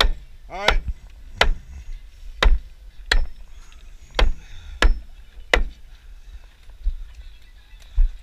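Nailing: about nine sharp strikes over eight seconds at an uneven pace, roughly one every second.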